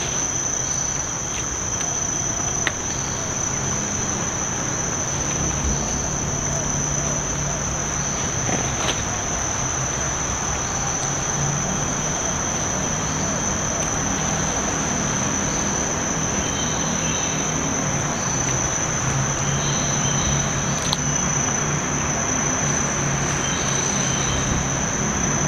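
Steady, unbroken high-pitched drone of an insect chorus in the forest.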